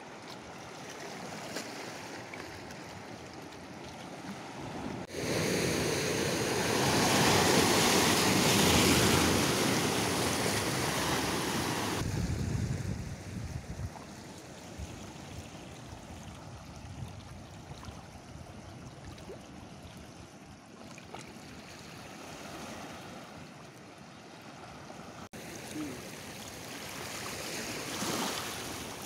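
Sea water washing and lapping over a rocky shore and tide pools. A much louder rushing stretch begins about five seconds in and cuts off suddenly about twelve seconds in.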